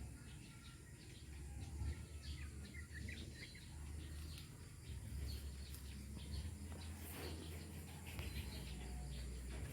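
Birds chirping faintly in short calls, most of them clustered a few seconds in, over a steady low rumble.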